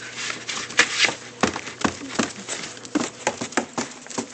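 Puppies scrabbling and shifting about in their box close to the microphone: rustling with irregular clicks and scratches.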